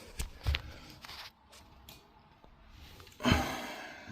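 Small clicks and knocks of handling while a pipe gap is measured, then a louder rustling thump about three seconds in.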